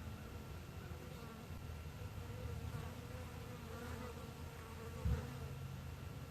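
A flying insect buzzing, its pitch wavering as it moves about, over garden background noise. A short low thump about five seconds in.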